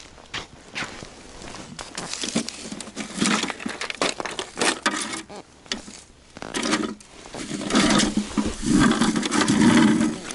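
Boots crunching on ice, then gear being handled: an ice fishing rod knocking against a plastic bucket and its packaging card crinkling, a string of clicks and rustles that grows louder near the end.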